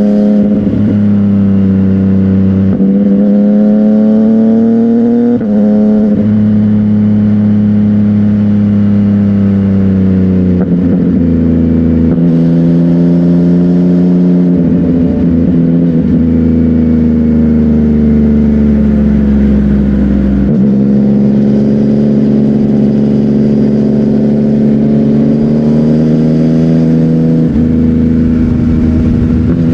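CFMOTO 675NK's three-cylinder engine running loud through a titanium aftermarket exhaust, its pitch drifting gently up and down with a few small shifts along the way.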